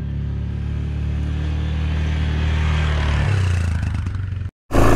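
Yamaha Grizzly 450 ATV's single-cylinder engine running under way on a trail, slowly getting louder, with a change in its pitch a little past three seconds in. The sound cuts out for a moment near the end.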